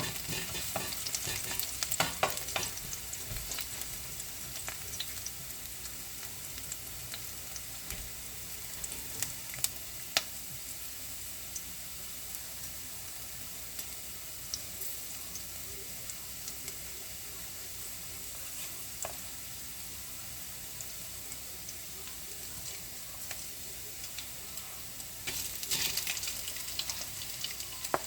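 Food sizzling steadily in a frying pan while pancit is being cooked. A utensil clicks and scrapes against the pan in the first couple of seconds, there are a few sharp clicks around ten seconds in, and the stirring gets busier near the end.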